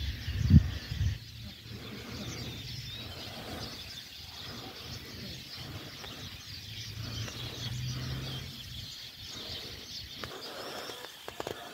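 Songbirds chirping and singing in a steady background chorus of small, high calls. A couple of low rumbles hit the microphone in the first second.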